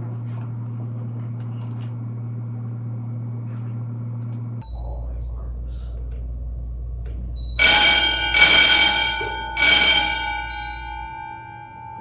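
Wheelock motor fire alarm bells ringing three short bursts in an even beat, then the ringing dies away over a couple of seconds: the alarm sounding as the high smoke detector under test trips. A steady electrical hum runs beneath.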